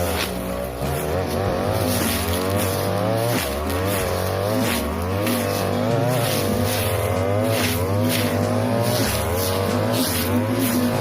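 A 42cc two-stroke brush cutter runs at high revs, its blade cutting tall, flattened cogon grass. The engine pitch dips and recovers about once a second as the blade bites into the grass, with brief swishes of the cut.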